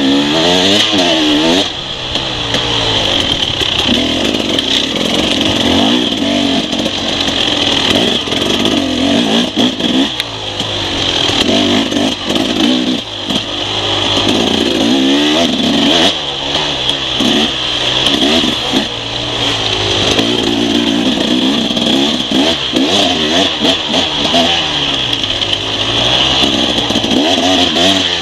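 Enduro motorcycle engine heard from on the bike itself, revving up and falling back again and again as it is ridden hard along a dirt trail, with a steady hiss over it.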